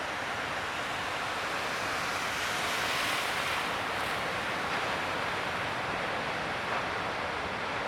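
Breaking ocean surf: a steady rushing wash of waves that grows louder about three seconds in, then settles.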